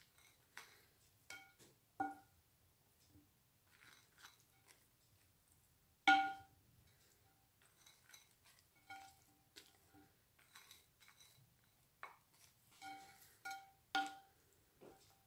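Wooden spoon knocking and scraping against glass bowls as raisins are tipped out of a small glass bowl: scattered clinks, each with a short glassy ring, the loudest about six seconds in.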